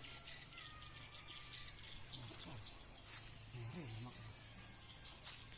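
Crickets or similar insects: one trills steadily at a high pitch throughout, and from about halfway a second chirps in a quick even pulse, about five chirps a second.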